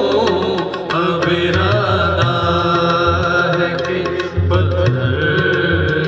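Urdu nazm sung live by male voices over a keyboard, with a steady beat of hand percussion underneath.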